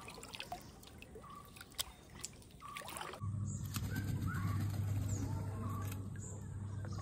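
Kayak paddle dipping, with water trickling off the blade. About three seconds in, short bird chirps come in over a steady low hum.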